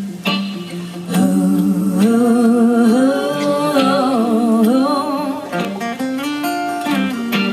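Live band music: guitars, with voices singing long, wavering held notes.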